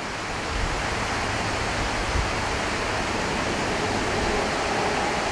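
Waterfall rushing in a steady, even roar, with low rumbling bumps of wind on the microphone.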